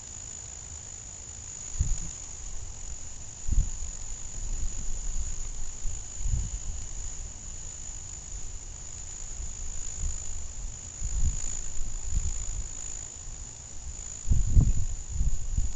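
A steady, high-pitched chorus of night insects, crickets, trilling without pause. Irregular low thumps and rumbles on the microphone come and go over it, strongest near the end.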